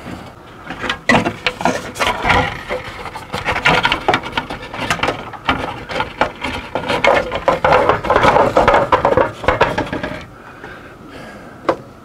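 Hand reassembly of an RV furnace: the blower wheel, housing and cover being handled and fitted back together, a busy run of knocks, clicks and rubbing. It eases off near the end, with one sharp click.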